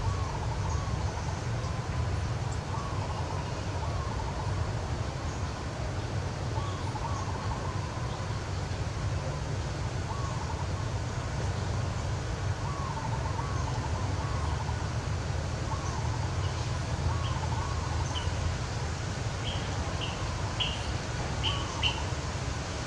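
Birds calling again and again in short arched notes, in pairs and threes, joined in the last few seconds by quick high chirps, over a steady low rumble.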